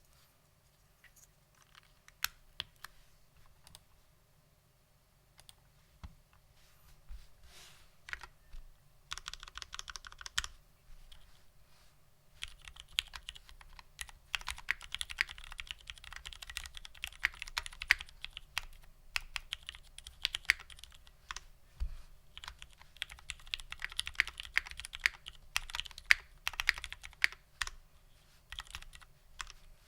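Typing on a UTD 356mini mechanical keyboard with lubed Cherry Vintage Black linear switches in an aluminium plate and GMK keycaps. It starts with scattered single keystrokes and goes into steady fast typing from about halfway on, with a short pause near the end.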